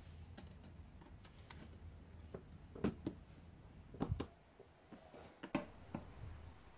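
Scattered light clicks and knocks as a clear plastic screen-protector alignment guide is clipped around a Samsung Galaxy S9+ and the phone is handled on a wooden desk. The loudest knocks fall about three, four and five and a half seconds in.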